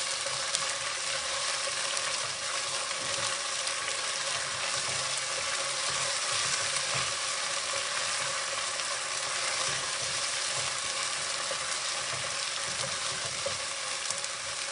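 Onions and ginger-garlic paste frying in hot oil and ghee, a steady sizzle with occasional light scraping of the stirring spoon.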